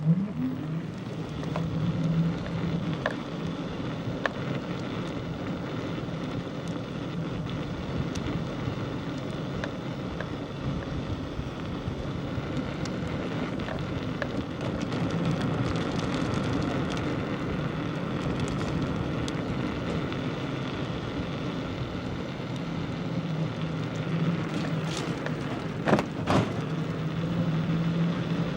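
Steady road noise of a moving vehicle, with a low hum that swells a few times and a couple of sharp clicks near the end.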